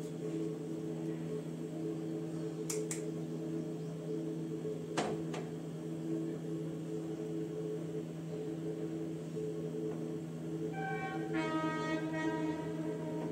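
A steady low hum made of several held tones, with a few faint light clicks of a spoon against the dish and a short run of stepped higher tones near the end.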